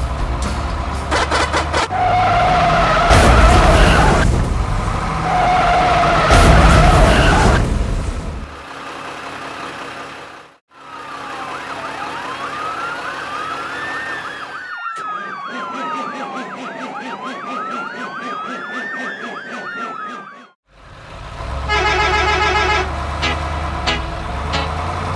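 A siren sound effect wailing slowly up and down for about nine seconds, cutting off abruptly. Louder music and vehicle sound effects come before and after it.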